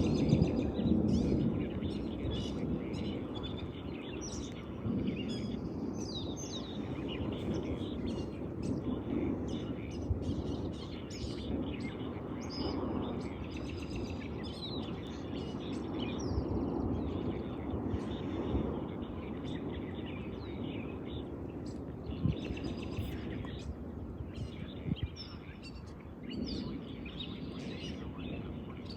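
Birds chirping and calling over a steady low outdoor noise, with a low rumble of thunder dying away in the first few seconds.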